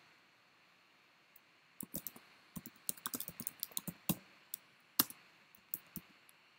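Computer keyboard typing: an irregular run of key clicks starting about two seconds in, with one louder keystroke near the end.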